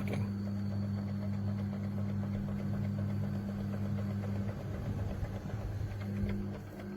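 AC Infinity clip fan running with a steady motor hum and a repeated knocking from the fan, a fault the owner says both of his AC Infinity fans have.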